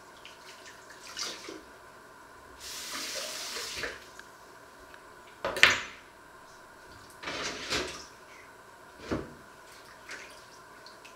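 Dishes being washed by hand at a kitchen sink: the tap runs in two short spurts, water splashes, and dishes clink and knock against the sink, one sharp knock about halfway through the loudest.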